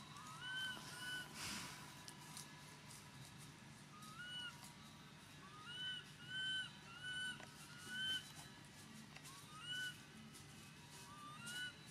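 An animal calling: about a dozen short whistle-like calls, each rising and then levelling off, several coming in quick pairs, over a faint steady hum.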